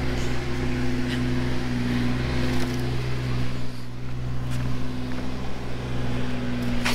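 A machine running steadily at a constant speed, a low even hum. A sharp click near the end.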